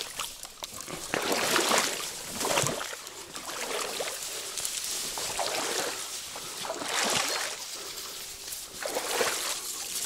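Irregular rustling of reeds and dry grass being pushed aside by hand at the water's edge, with light water sloshing against the bank.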